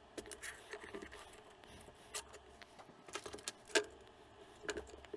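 Scattered small clicks and rustles of hands working a Cat5 network cable, pulling its plastic jacket open to get at the wires, with the sharpest click a little under four seconds in.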